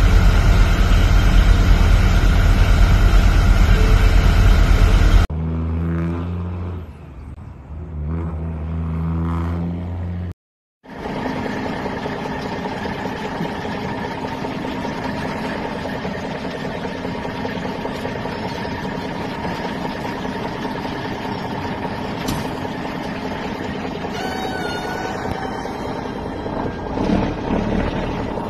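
Semi-truck diesel engines running at low speed across several short clips: a heavy low drone at first, an abrupt change to a different engine about five seconds in, and a short dropout near eleven seconds, then a steadier engine sound.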